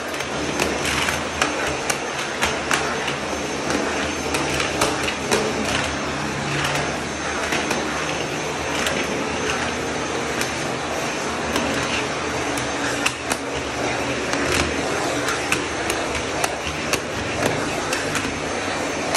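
Vacuum cleaner running steadily with a thin high whine, its floor nozzle on a metal wand knocking and clicking often as it is pushed over stair steps and floor tiles.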